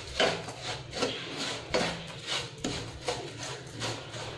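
Wooden spatula stirring and scraping dry roasted semolina and sugar around a nonstick kadhai, in repeated rasping strokes about twice a second.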